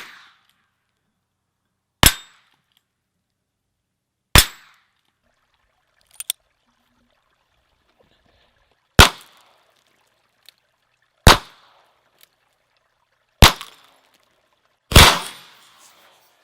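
Ruger Single Six .22 rimfire single-action revolver fired six times, each a sharp crack with a short ring-off, spaced about two seconds apart with a longer pause of about four seconds after the second shot. A pair of faint clicks falls in that pause.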